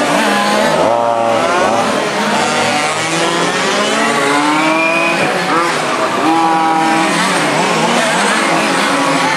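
Several radio-controlled model race cars' small engines running at high revs, their overlapping pitches rising and falling as the cars accelerate and brake around the track.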